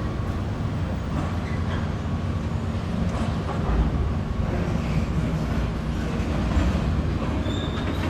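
Railway carriages rolling slowly as a train is hauled off a train ferry, a steady low rumble with wheel clatter and a brief thin wheel squeal near the end.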